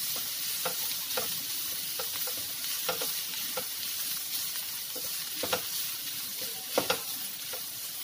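Boiled minced meat and chopped onion sizzling in oil in a non-stick frying pan over medium heat. A wooden spatula stirs it, scraping and tapping the pan at irregular moments, with two louder knocks close together near the end.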